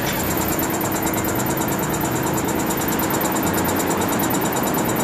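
Tram standing close by, giving a steady mechanical running hum, with a steady tone that stops about three seconds in.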